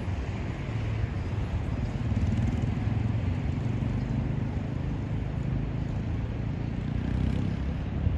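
Steady city street noise: a low rumble of road traffic.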